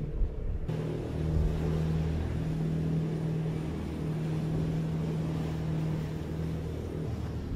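Riverine Command Boat's diesel engines running at speed, a steady low drone over the rush of water and wind. The sound steps up suddenly just under a second in.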